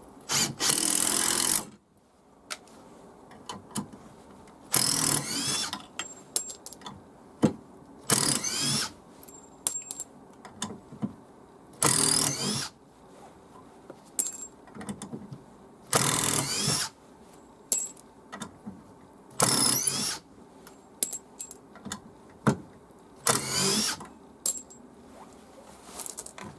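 Makita TD171D cordless brushless impact driver run in short bursts: seven trigger pulls of about a second each, a few seconds apart, the motor's pitch rising as it spins up. Small clicks of handling come between the runs.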